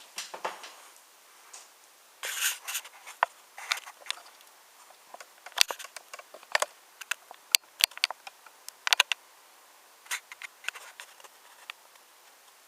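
Wooden toy train rattling and clicking along wooden railway track, with irregular sharp clicks and short scraping clatters.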